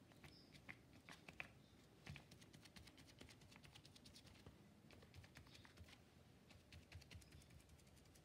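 Faint quick tapping, several taps a second: a small sponge dabbed repeatedly onto paper to print acrylic paint.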